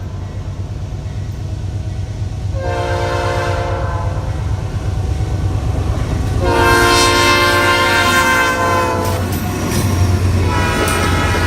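Freight locomotive air horn sounding a short blast a few seconds in, then a long blast, then another blast starting near the end, over the steady low rumble of the moving train.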